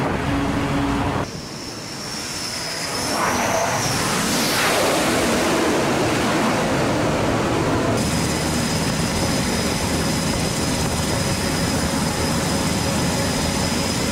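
Aircraft turbine engines running on a carrier flight deck: a steady rushing engine noise with a high whine. Near the start it drops quieter under a gliding high tone and swells again with a rushing sweep a few seconds in, then holds steady with a constant high whine.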